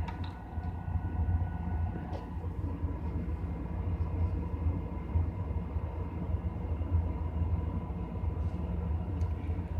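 Compaq Portable computer powered on and running: a steady low mechanical hum, with a light click just after the start and another about two seconds in.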